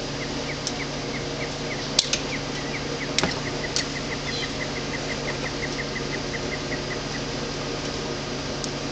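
A few sharp clicks and taps as wires and hand tools are handled at an electrical panel, over a steady low hum. In the background a run of short high chirps repeats evenly, quickening, and stops about seven seconds in.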